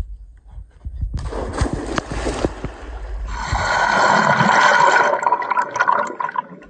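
A person diving into a river: a splash about a second in, then rushing, bubbling water heard underwater, loudest around four to five seconds in.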